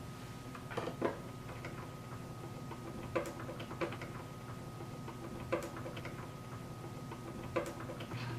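Scattered small clicks and ticks, about six at irregular spacing, from a 1/4-inch hex driver turning metal hex standoffs into a spa pack's circuit board, over a faint steady hum.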